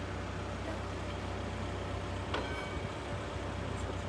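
Car engine running steadily at low speed, a low even drone, with a single short click a little past halfway through.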